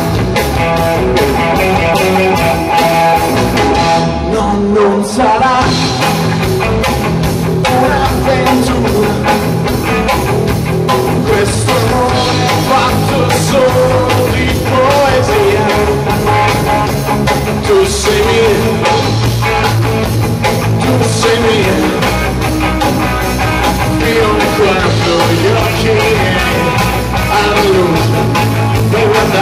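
Rock song playing: a band with guitar, bass and drums at a steady beat.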